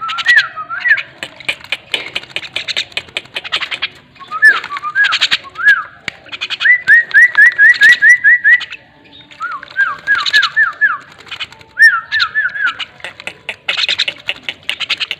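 A bird whistling in runs of short, clear notes, one run of about eight identical rising whistles near the middle. Under it is a rapid patter of small splashes and flutters from a bird bathing in a shallow water tray.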